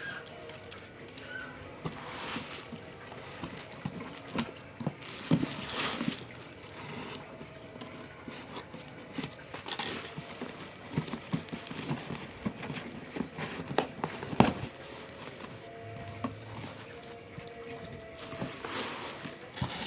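Unboxing handling noises: scattered clicks and knocks with short bursts of rustling packaging, the loudest knock about two-thirds of the way through.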